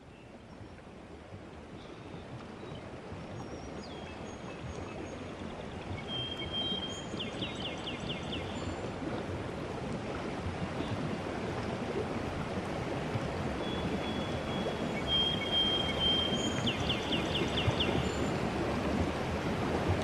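Running stream with a songbird: the water's steady rush swells in gradually, and twice a bird gives a held high whistle followed by a quick trill.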